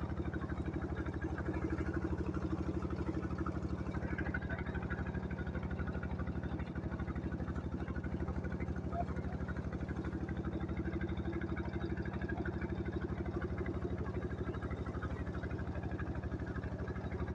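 Tube well's pump engine running steadily with an even, rapid beat, and water gushing from the outlet pipe into the tank.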